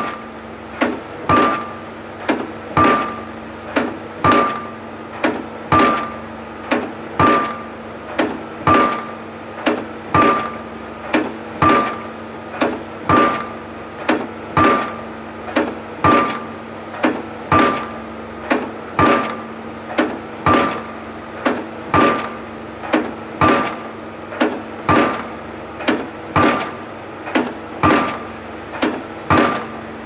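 Junttan PM25 piling rig's hydraulic hammer driving a precast concrete pile, striking steadily about once every one and a half seconds. Each blow has a short metallic ring, over the steady hum of the rig.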